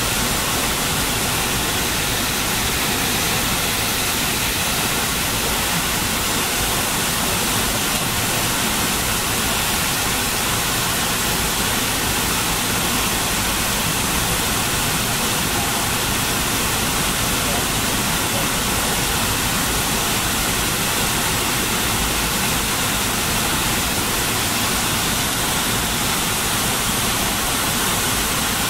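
Steady cabin noise inside a McDonnell Douglas MD-80 airliner descending on approach: rushing airflow over the fuselage mixed with the hum of its rear-mounted Pratt & Whitney JT8D turbofan engines, heard from a window seat.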